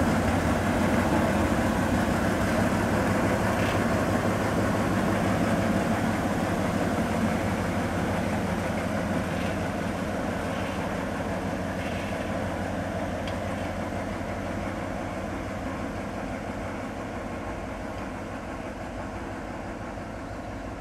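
Diesel engine of a DB class 346 (ex-DR V60) shunting locomotive, a V12, running steadily with a low hum and fading slowly as the locomotive draws away.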